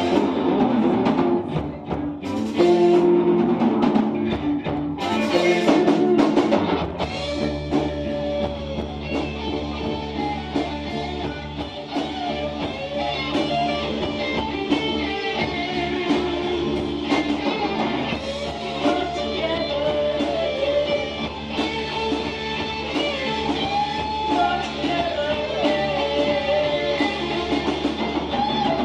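Live rock band playing: drum kit, electric guitars and bass guitar, with a singer on the microphone. For about the first seven seconds the drums hit hard, then the full band settles into a steady groove under the sung melody.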